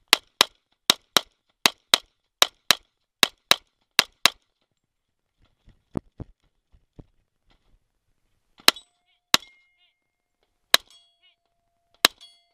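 Semi-automatic pistol firing six fast double taps, two shots about a quarter second apart in each pair, over about four seconds. After a pause, four more single shots a second or more apart, each followed by a brief ringing tone from a struck steel target.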